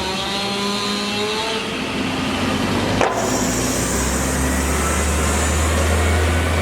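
Engines running steadily, with a sharp knock about three seconds in, followed by a loud low drone.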